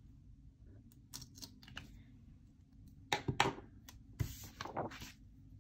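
Paper planner pages and a sticker strip handled on a table: a string of short paper rustles and light taps, loudest in two clusters about three and four seconds in.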